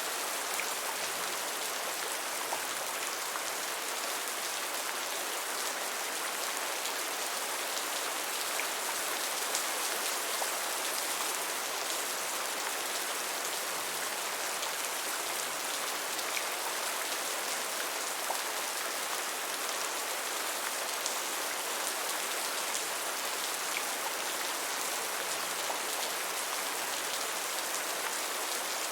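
Steady gentle rain: an even hiss of falling rain with scattered faint drop ticks, unchanging throughout.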